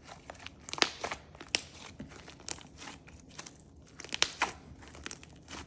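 Slime being squished and mixed by hand, giving irregular sharp pops and crackles as air pockets burst.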